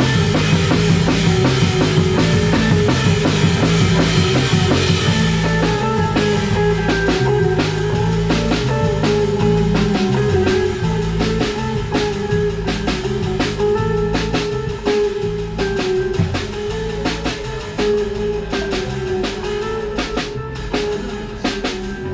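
Live instrumental trio of electric guitar, electric bass and a Gretsch drum kit playing together. Cymbals wash loudly for the first few seconds, then the drums settle into separate sharp hits over the bass line, and the band eases down gently toward the end.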